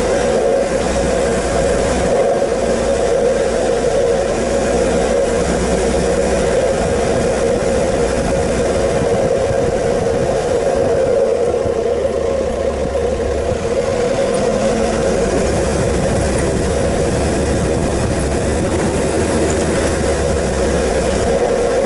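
Four-wheel-drive vehicle driving up a dirt track, its engine running steadily over a continuous low rumble.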